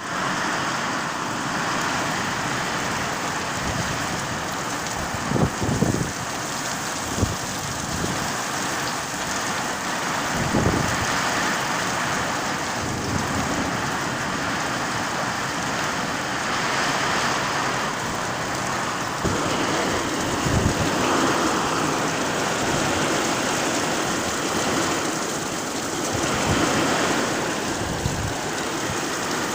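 Heavy rain pouring down in a squall, a steady dense hiss, with a few short low thumps scattered through it.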